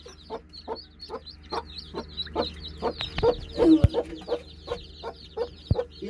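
Newly hatched chicks peeping, a rapid stream of short, high, falling chirps, with the broody mother hen clucking low among them, loudest a little before the middle of the stretch.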